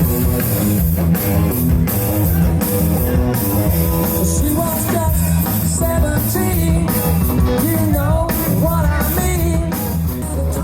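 Live rock covers band playing a song at high volume, with a steady drum beat.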